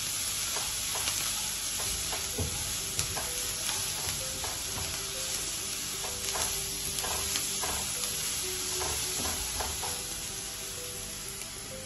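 Chopped onion, green chilli-garlic paste and mustard seeds sizzling as they fry in a ceramic-coated kadai, stirred and scraped with a silicone spatula, with scattered small clicks through the steady sizzle.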